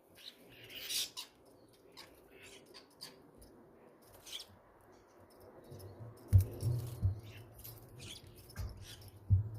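Starlings at a bird feeder: short high chirps and calls, with four low, sharp thumps in the second half that are the loudest sounds.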